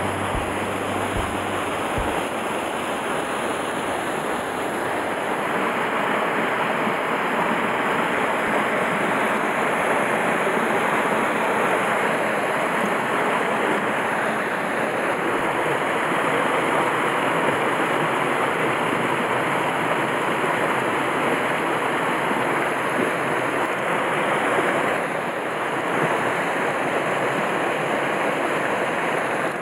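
Steady rush of a small mountain stream's white water cascading down a rocky chute and falling into a pool, running with spring snowmelt.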